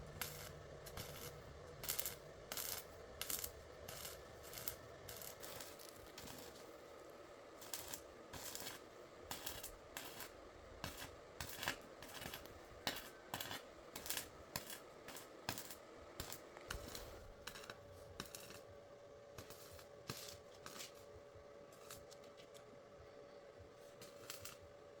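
Irregular light metallic clicks and taps, many in quick succession and then thinning out after about sixteen seconds, over a faint steady hum.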